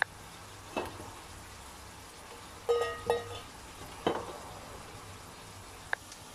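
Food frying in oil in a nonstick pan, a steady sizzle, with a metal slotted spatula knocking and scraping against the pan about five times; the loudest, a short ringing clank, comes near the middle.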